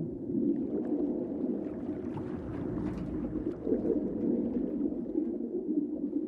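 Underwater ambience: a steady muffled low drone with faint scattered clicks above it.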